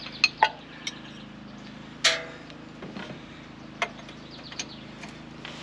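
Scattered metallic clicks and taps of hand tools on engine fittings, a few near the start and a louder one about two seconds in, over a steady low hum.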